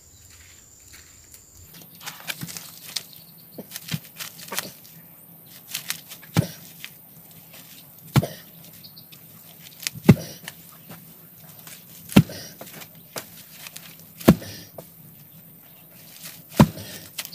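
Heavy hand-tool blows at a steady pace. From about six seconds in there are six strong strikes roughly two seconds apart, with lighter knocks and rustling before and between them.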